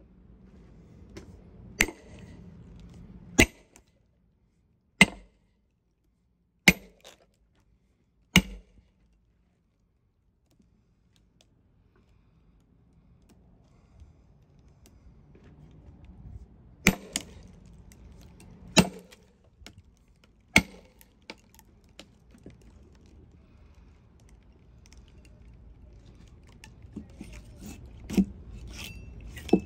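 Sharp knocks of wedges being struck into a hickory log to split it along its length: five blows about a second and a half apart, a pause, then three more and a few lighter taps near the end.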